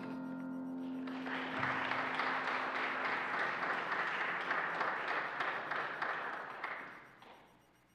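The last piano chord rings out and dies away, then the congregation applauds for about six seconds before the clapping fades out.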